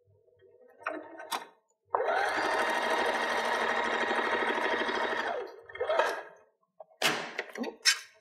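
Janome domestic sewing machine stitching a straight seam through two layers of quilting cotton, running steadily for about three seconds and then slowing to a stop. A few short swishing sounds follow near the end.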